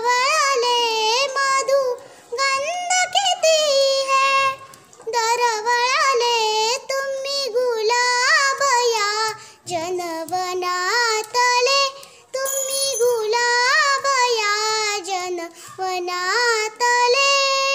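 A young girl singing a Marathi welcome song (swagat geet) unaccompanied, in phrases of one to three seconds with short pauses for breath between them.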